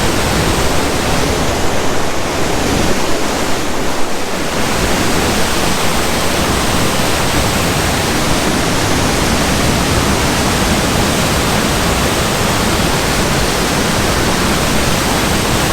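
Horsetail Falls, a steady loud rush of falling water. The noise dips slightly about four seconds in.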